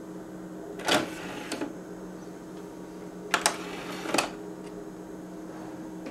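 Memorex CD radio's CD tray mechanism being worked: a few sharp clicks about a second in and again three to four seconds in, one with a brief whirr, over a steady low hum. The tray is now moving properly on its refitted belt.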